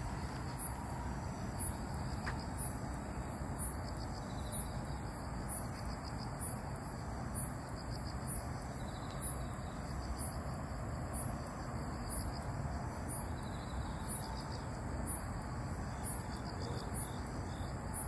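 An insect in the grass giving short, high-pitched chirps evenly about once a second, with fainter insect trilling behind it over a steady low background noise.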